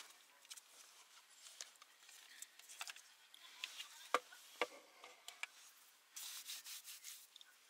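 Quiet handling noises: scattered rustling and light clicks, with two sharper knocks a little past halfway and a short stretch of rubbing near the end.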